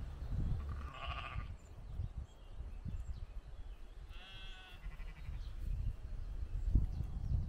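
An animal bleating twice: a short call about a second in, then a longer, wavering one about four seconds in, over a low rumble.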